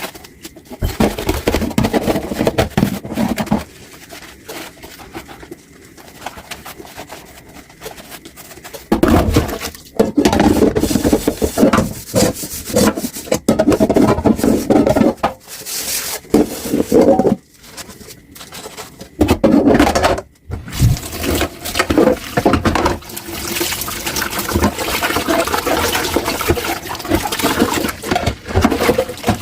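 Dishes and a kitchen sink being scrubbed by hand: irregular rubbing and scraping strokes with small knocks, and water running from the tap in the last few seconds.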